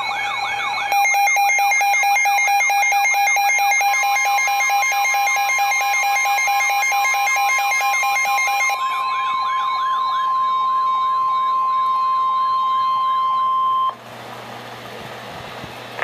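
A Midland weather radio's alert: a fast warbling siren together with rapid pulsing beeps. About four seconds in, the NOAA Weather Radio 1050 Hz warning tone comes in and holds steady under them, signalling an issued warning. The beeps stop about nine seconds in and the siren fades out soon after. The long steady tone then cuts off sharply a couple of seconds before the end, leaving only faint hiss.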